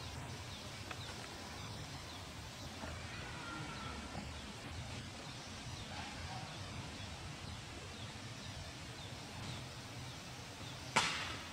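Quiet outdoor ambience with faint, scattered bird chirps and a faint drawn-out call a few seconds in. A single short, sharp noise stands out near the end.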